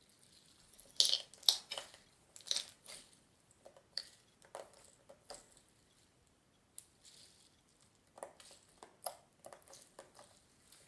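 Clear green slime with googly eyes in it being squeezed and stretched by hand: irregular squishy crackles and clicks, which she puts down to the googly eyes moving around in the slime, a squirmy noise.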